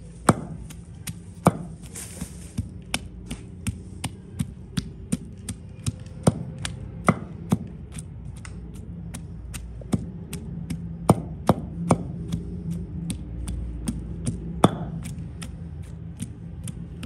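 Wooden pestle pounding ginger and garlic in a stone mortar: a steady run of sharp knocks, about two to three strokes a second.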